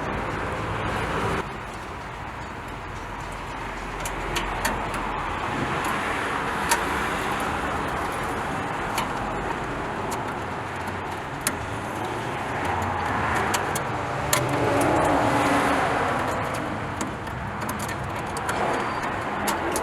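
Steady background noise, like road traffic, with scattered light clicks and taps and a brief swell about three quarters of the way through. The second car horn, wired directly to the battery, stays silent: it does not work.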